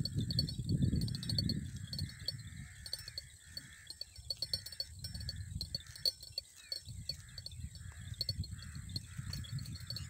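Open-field ambience: wind rumbling on the microphone, strongest in the first two seconds and again from about seven seconds in, under a steady chirping call repeated about twice a second and faint high ticking.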